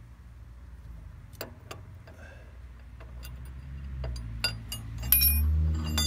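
Wrenches on steel: scattered sharp clicks, then ringing metallic clinks near the end, as the lock nut on the hydraulic pump's pressure-adjustment screw is worked loose. A low hum runs underneath and swells near the end.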